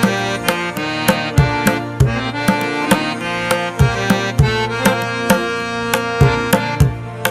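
Background music with a steady percussive beat over sustained pitched notes.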